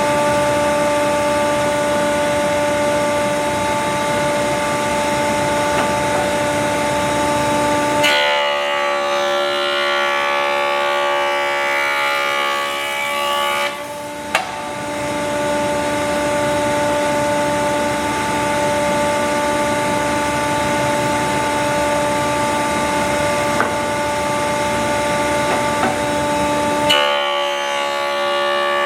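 A woodworking power tool running with a steady hum. Its tone changes from about 8 to 14 seconds in and again near the end, as it works through wood.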